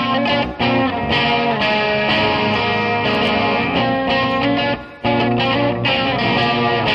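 Guitar music, a short piece played continuously, dropping out for a moment twice: about half a second in and again around five seconds in.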